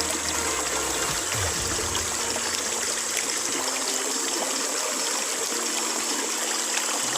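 River water rushing steadily over rocks, a constant hiss with no breaks.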